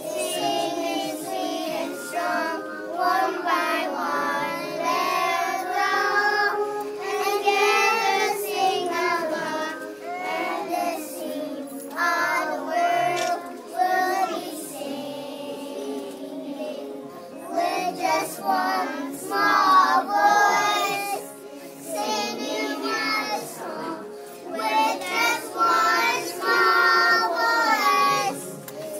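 A group of young children singing a song together, phrase after phrase with brief pauses between lines.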